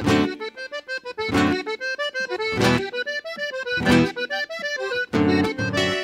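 An eight-bass diatonic button accordion (gaita de oito baixos) plays a running melody over a sparse accompaniment, with a single low accented chord about every second and a quarter. About five seconds in, the full rhythmic bass-and-chord accompaniment comes back.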